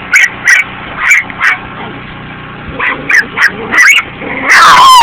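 Small black puppy giving short, sharp yapping barks while held by a hand: defensive warning barks at being handled and picked up. There is a quieter pause about two seconds in, and near the end a longer, louder high cry that falls in pitch.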